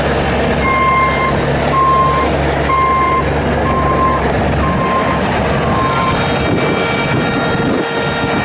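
Bobcat S450 skid steer loader's 49 hp diesel engine running while its backup alarm beeps about once a second, six or so times; the beeping stops about six seconds in as the machine keeps running.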